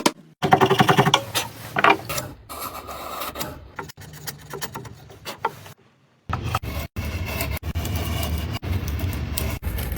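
Wood being worked with hand or power tools: scraping and rubbing sounds, fast and pulsing at first, then a steadier run with a low hum from about six seconds in, chopped up by several abrupt edits.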